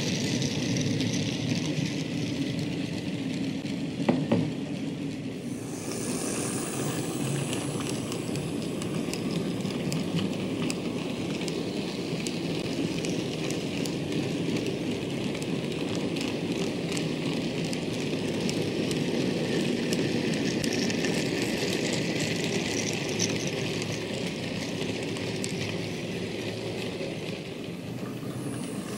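OO gauge model coal wagons rolling along the track, a steady rumble of small wheels with many quick clicks over the rail joints. A brief knock comes about four seconds in.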